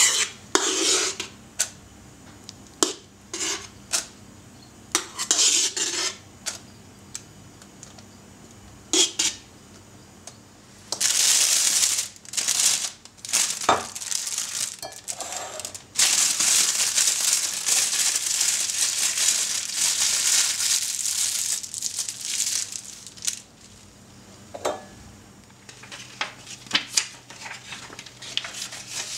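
Kitchen handling sounds: whipped cream is scraped out of a stainless-steel mixing bowl into a plastic piping bag. The plastic bag crinkles and rustles, in one long stretch past the middle, among scattered sharp clinks and knocks of metal and glass.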